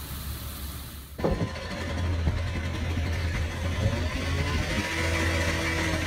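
Heat pump outdoor unit running with its compressor on, a steady low hum. A sudden thump comes about a second in, as the hum sets in.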